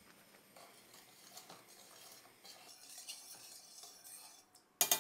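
A metal utensil stirring sugar into water in a stainless steel pot to dissolve it for syrup, with a faint scraping and swishing. Near the end there is a short, loud run of metallic clinks.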